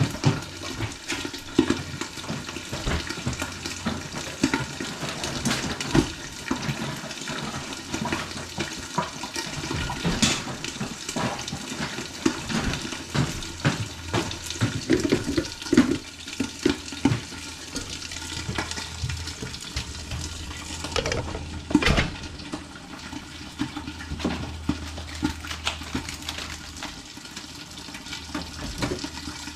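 Water running from a kitchen tap into a sink, with repeated small knocks and clatter throughout, as of things being washed or handled in the sink. A low steady hum runs underneath.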